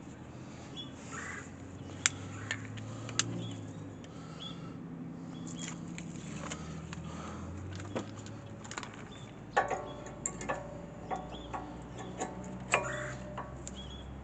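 Scattered metal clicks and clinks of brake pads and tools being handled, a few knocks near the end ringing briefly like loose metal parts, over a low steady hum.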